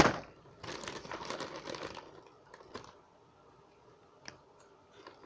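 A sharp knock, then about a second of crinkling and rustling as a snack packet is handled, followed by a few light clicks.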